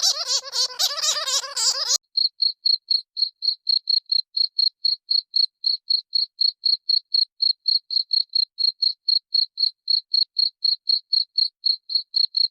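A wavering, pitched animal call cuts off about two seconds in. It gives way to a cricket chirping steadily in short, high, even pulses, about four a second.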